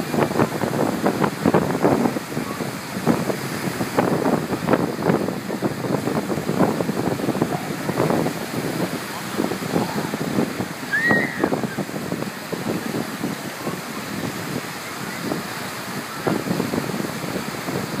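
Small waves breaking and washing in shallow surf, with wind buffeting the microphone and voices mixed in.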